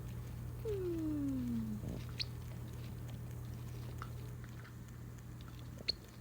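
One falling call that slides smoothly down in pitch for about a second, followed by a few faint clicks over a steady low hum.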